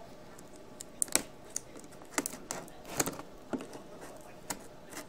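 Cardboard TV box being handled and worked open by hand: irregular sharp clicks and taps of cardboard and packaging, starting about a second in.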